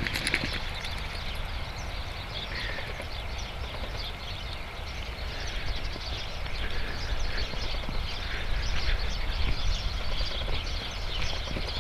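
Wind rumbling on the microphone, with light, scattered crunching of footsteps on thin snow over grass.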